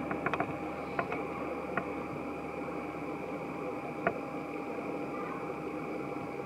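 Airliner running on the ground: a steady high whine over a broad, even rumble, with a few short sharp clicks in the first half.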